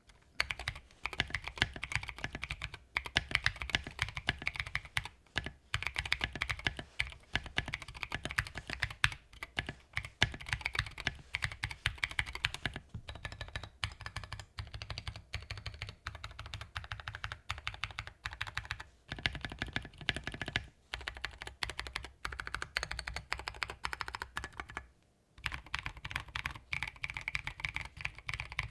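Typing on a Bakeneko 60 mechanical keyboard fitted with stock, unlubricated Durock Cerulean tactile switches: a fast, steady run of keystroke clacks, with short breaks about five, nineteen and twenty-five seconds in.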